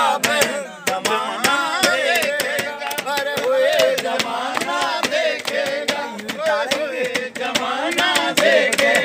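A group of men singing a Hindi political song, one lead voice carrying the tune, with sharp beats keeping time throughout.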